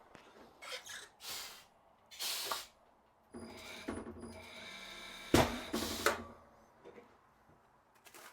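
Tire changer mounting a tire: several short scuffing noises, then the machine's motor runs steadily for about three seconds, with a loud knock about two-thirds of the way through.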